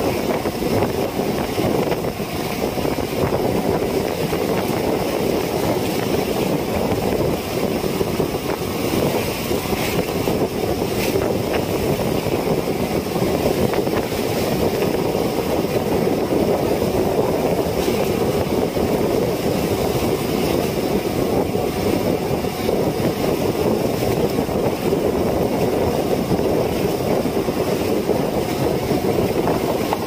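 Boat engine running steadily at sea.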